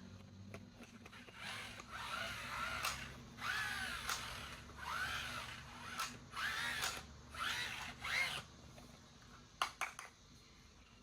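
A toy's small electric motor whirring in about six short bursts, each whine rising and then falling in pitch as the motor spins up and winds down. A few sharp clicks follow near the end.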